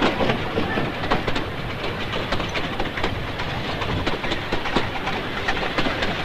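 A moving train clattering along: a steady rumble with irregular knocks and clacks of the wheels on the rails.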